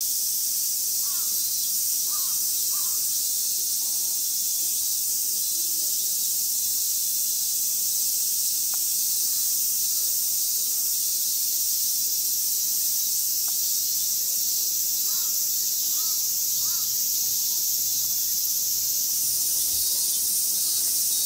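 A dense chorus of summer insects, typical of cicadas, makes a steady high hiss. A pulsing layer joins it about twelve seconds in and stops near nineteen seconds. A few short chirps come near the start and again around fifteen seconds.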